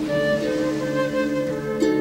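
Background music: a slow melody of held notes, with a plucked note near the end.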